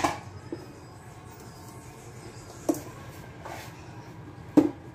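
Kitchen handling sounds of dough being mixed by hand in a bowl: three sharp knocks, at the start, under three seconds in, and the loudest near the end, over a low steady background.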